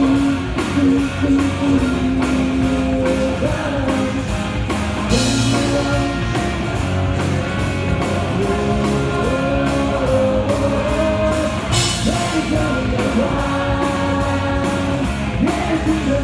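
Loud rock song: a singer over electric guitars and a drum kit, played through a big outdoor concert sound system and heard from among the audience.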